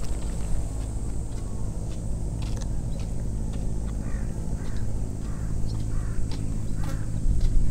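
A crow cawing about five times in a quick series, over a steady low hum.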